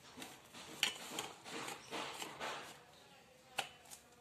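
Handling sounds as a blender's power cord and plug are taken to a kitchen wall socket: a few sharp clicks and knocks, the clearest about a second in and near the end, with soft rustling between them. The blender motor is not running.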